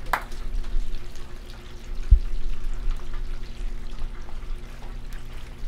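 Battered rock shrimp tempura deep-frying in hot oil, a light crackling sizzle during its second fry to crisp the batter, over a steady low hum. A single low thump about two seconds in.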